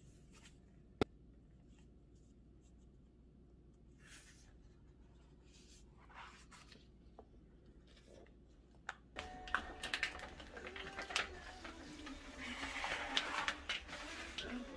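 Soft paper rustles as book pages are turned and clover leaves are pressed between them, with a single sharp click about a second in. From about nine seconds, louder rustling and light knocks of hands handling things.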